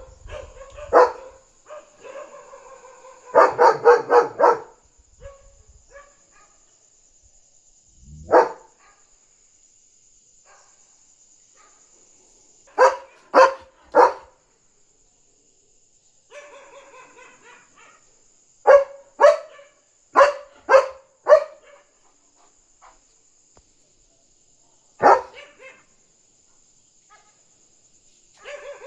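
German Shepherd barking in loud single barks and short rapid volleys, with pauses of several seconds between them: alarm barking at another dog outside. A faint steady high-pitched whine runs underneath.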